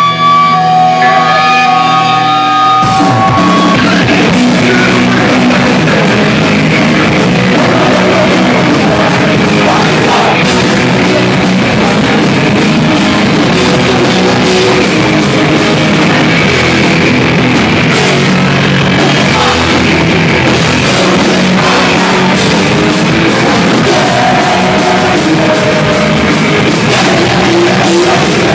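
Hardcore punk band playing live and loud: distorted electric guitars, bass and drums. Held guitar notes ring for the first few seconds, then the full band comes in about three seconds in and drives on without a break.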